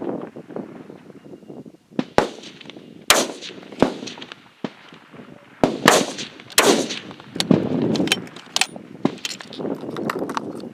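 Rifle shots from several F-Class shooters on a firing line: about ten sharp reports at irregular intervals, a few close together, each trailing a short echo.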